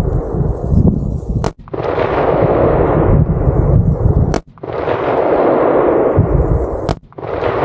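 Three shots from a suppressed 20-inch Ruger SFAR semi-automatic rifle in .308 Winchester, about two and a half to three seconds apart, each followed by a long rumble that fades away.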